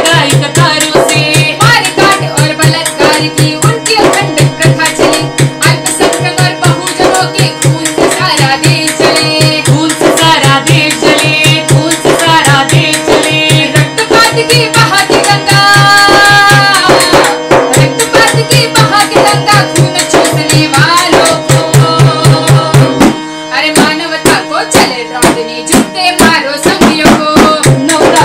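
A hand-struck frame drum beats a fast, steady rhythm under sustained harmonium chords, with a woman singing over them. The low drum beat drops out briefly about three-quarters of the way through, then the playing carries on.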